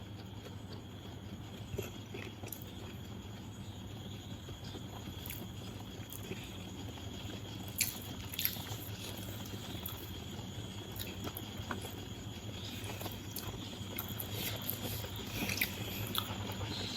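A person chewing and eating biriyani, with scattered small clicks over a steady low hum.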